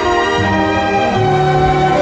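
Background music: sustained orchestral strings, with the low notes changing every half second or so.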